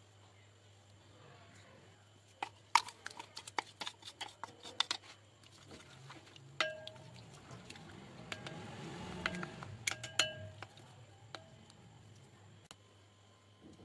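A spoon clicking and tapping against a glass bowl as spices and blended greens are added to yogurt and stirred in: a quick run of sharp clicks a few seconds in, then scattered taps, some leaving a short glassy ring. Around the middle a soft wet stirring sound swells and fades.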